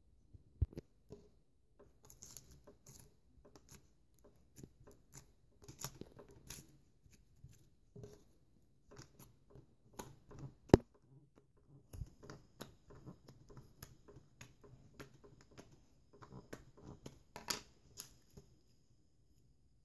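Blue glitter slime being pressed and poked by fingers, giving irregular small clicks and pops as air pockets in the slime burst, with one louder pop about halfway through.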